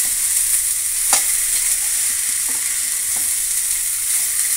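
Boiled horse gram frying in a non-stick kadai, sizzling steadily while a steel spoon stirs through it, with a few sharp clicks of the spoon against the pan. The gram is being fried so that its moisture cooks off.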